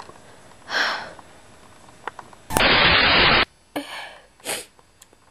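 A short breathy sniff, then about a second of loud static hiss that starts and cuts off abruptly, followed by a few more sniffs or breaths.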